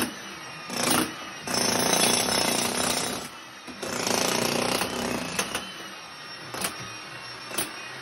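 Corded electric demolition hammer chiseling at a concrete floor. It hammers in two runs of about a second and a half each, with short bursts before and after.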